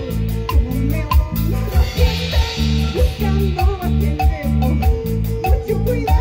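Live band playing an up-tempo instrumental praise tune: a drum kit struck with sticks keeps a quick, steady beat with cymbals over a repeating bass line and a melody.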